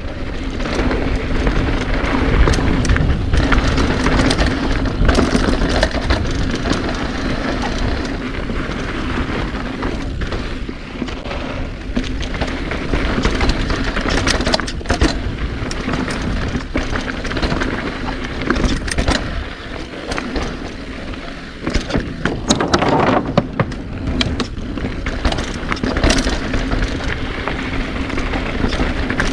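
Mountain bike riding down a bike-park trail: continuous rushing noise with a steady hum and frequent rattles and knocks from the bike over rough ground.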